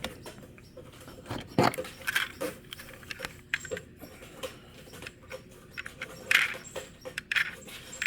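Small clicks and knocks of a 1/32 scale Jada diecast model car being handled and rolled on a surface, with a few short rustling bursts in between; the wheels have little free roll.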